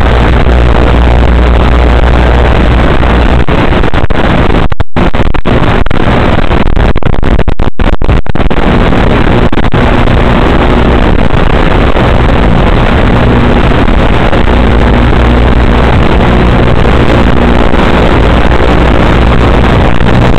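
Loud, steady static hiss from an analog FPV video receiver's recording, with a low hum underneath and a couple of brief dropouts around five and eight seconds in.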